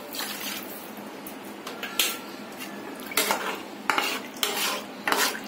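Perforated stainless-steel spatula stirring a thin, watery curry gravy in a pan, scraping and clinking against the pan about six times at uneven intervals, more often in the second half.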